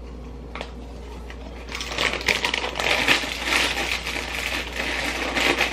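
Chili Cheese Fritos chip bag crinkling and crackling as it is folded shut by hand, a dense run of crackles starting about two seconds in.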